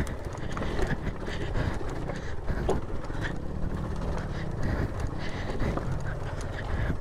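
A Suzuki Van Van 125's single-cylinder four-stroke engine running as the motorcycle climbs a rocky trail. Scattered knocks and clatter come from the tyres going over loose stones.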